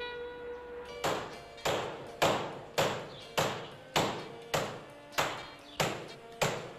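A carpet hung on a line being beaten with a carpet beater: sharp whacks at an even pace, just under two a second, starting about a second in. The tail of a held music note fades out in the first second.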